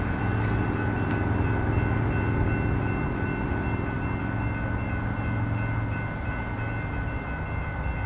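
Train at a level crossing: a steady low engine hum with steady high-pitched tones held above it.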